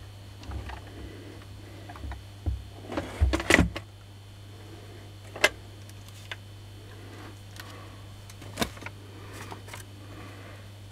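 Parts of a dismantled Makita 9237CB polisher being handled and set down: scattered knocks and clicks of metal and plastic parts, a cluster about three to four seconds in, then two single sharp clicks, over a steady low hum.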